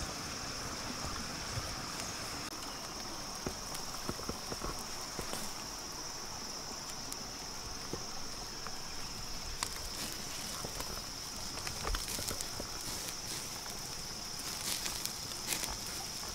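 Wood campfire crackling under fish grilling on a bamboo rack, with scattered sharp pops, over a steady high-pitched drone of insects.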